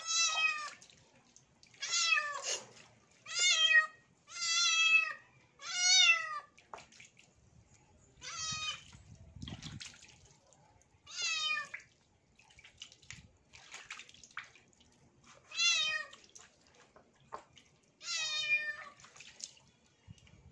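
A wet tabby kitten meowing loudly about ten times while it is being washed, each meow short and bending in pitch, with gaps of one to four seconds between them.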